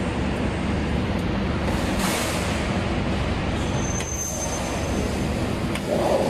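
Steady mechanical background noise, a low rumbling drone with hiss, with a short burst of hiss about two seconds in and a few faint clicks.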